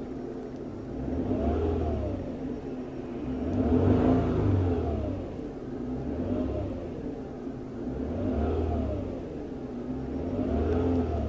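Warm car engine blipped from idle five times, about two seconds apart, each throttle snap rising in pitch and falling back to idle, peaking near 3,500 rpm. Heard from inside the car's cabin.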